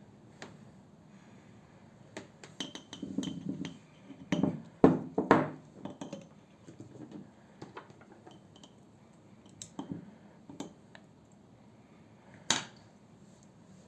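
Spoon clinking and scraping against a dish, as when stirring a home-made cough mixture of aloe vera gel, honey and butter: a busy run of knocks and scrapes in the first half, loudest around the middle, then a few single clinks with one sharp clink near the end.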